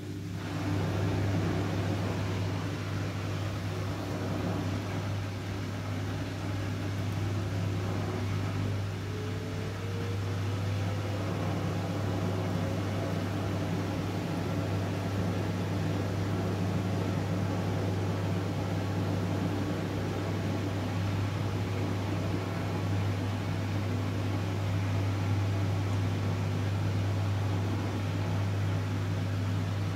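Front-loading washing machine running, its drum speeding up into a spin: a steady motor hum under an even whirr, with a thin whine rising in pitch about ten seconds in as the drum gathers speed.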